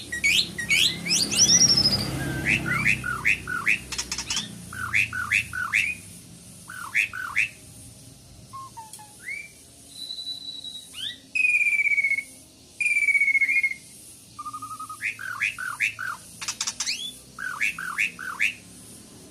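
Asian pied starling (jalak suren) singing: runs of quick up-and-down chattering notes, broken around the middle by a few long, clear whistles, then chattering again.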